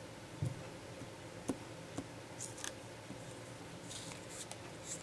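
Faint handling of die-cut cardstock pieces on a tabletop: a few light taps early, then several brief papery rustles and slides.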